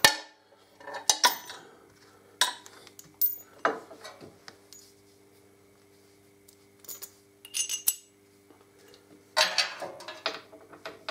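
Sharp metallic clinks and taps, in scattered clusters with a quiet gap in the middle, as a steel bolt and mount plate are handled and fitted by hand on a Harley-Davidson Electra Glide's swingarm mount.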